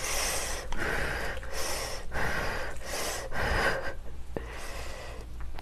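Glass noodles in a thick sauce being tossed and stirred with chopsticks in a glass bowl: soft, wet, sticky squelches about every half second.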